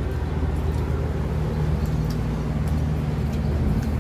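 Steady low rumble of road traffic, with a constant low hum under it.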